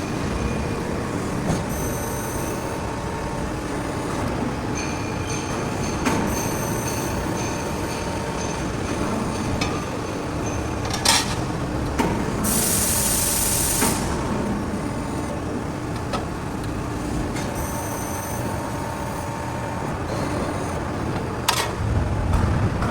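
CNC hydraulic press brake running: a steady mechanical hum with scattered sharp clicks and a hiss lasting about a second and a half a little past the middle. A louder low rumble starts near the end.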